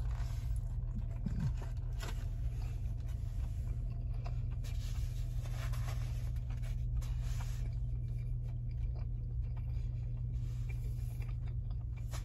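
Steady low hum inside a parked car, with faint scattered rustling and small ticks from a paper burger wrapper being handled.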